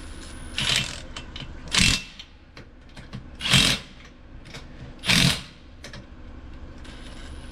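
Impact wrench giving four short zaps, roughly one and a half seconds apart, on wheel nuts. It is snugging a space-saver spare's nuts in criss-cross order to seat the wheel, before final tightening with a torque wrench.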